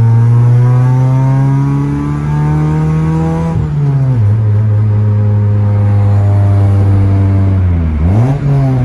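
Honda D17 1.7-litre four-cylinder engine of a 2000 Civic, heard from inside the cabin through a header feeding 2.5-inch stainless piping straight into an HKS-style muffler. It accelerates with rising pitch, drops in pitch sharply about three and a half seconds in, then pulls at a fairly steady pitch. Near the end the revs dip and pick up again.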